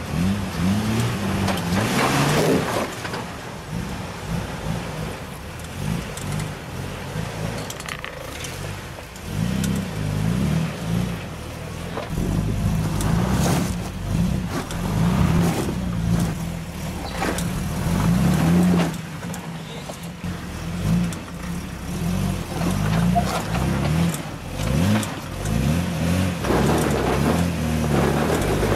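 Jeep Wrangler TJ's engine running at low revs, revved up and eased off again and again in short swells as the rock-crawler inches over boulders.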